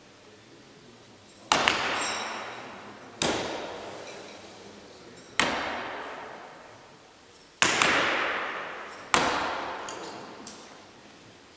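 Throwing knives striking wooden target boards: five sharp knocks a second and a half to two seconds apart, one of them doubled. Each echoes away slowly in a large sports hall.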